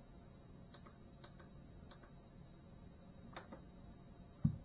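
Quiet room tone with a few light clicks, then a single dull low thump near the end.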